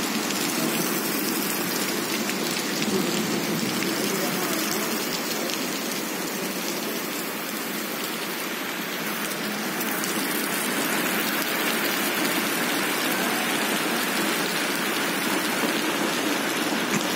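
Steady rain falling: an even hiss of drops that keeps up without a break.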